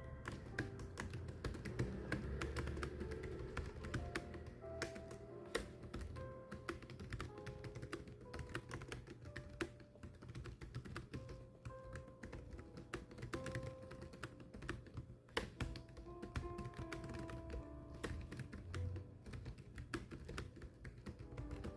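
Steady, rapid typing: irregular clacking key strokes that run on without pause. Soft background music with held notes plays underneath.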